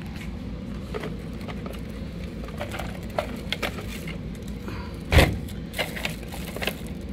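RC cars being handled and set down: scattered light clicks and knocks, with one louder thump about five seconds in, over a steady low background hum.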